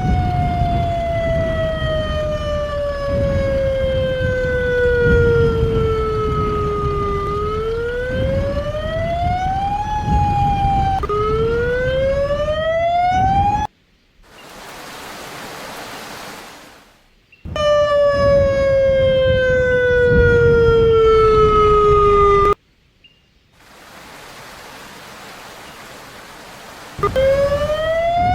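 Tornado warning siren wailing in slow glides of pitch, falling over several seconds and rising again, over a low rumble. It cuts out suddenly twice for a few seconds, leaving only a quieter hiss.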